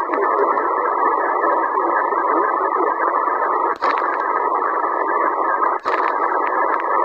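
Steady static hiss from a Sihuadon D-808 shortwave receiver in USB mode on the 15-metre band around 21.2 MHz, with no station clearly heard. Twice the hiss drops out for an instant with a click as the tuning steps up a kilohertz.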